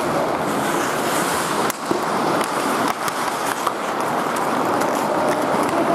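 Ice hockey play: skate blades scraping across the ice with several sharp clacks of sticks on the puck, the loudest about two seconds in.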